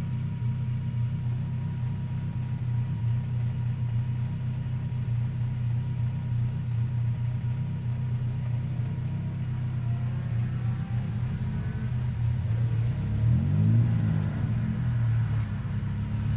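Rally car engines running at a start line, a steady low rumble. About twelve seconds in, one engine revs up, its pitch rising and falling.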